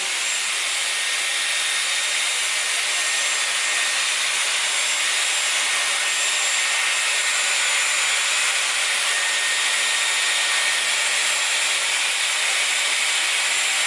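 Dyson Airwrap hair styler running, a steady rush of air with a faint high motor whine, as the airflow holds a section of hair wound around the curling barrel.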